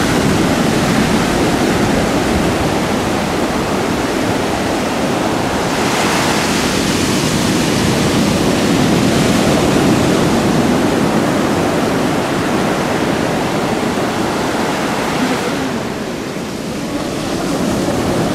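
Ocean surf breaking and washing up a beach, a continuous loud wash that swells about six seconds in and eases off briefly near the end.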